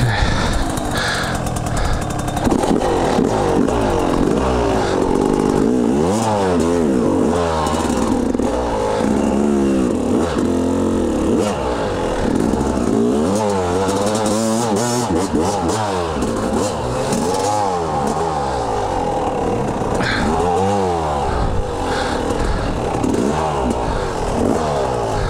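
Yamaha dirt bike engine running and being revved up and down over and over, its pitch rising and falling as the rider works the bike stuck in a deep muddy rut.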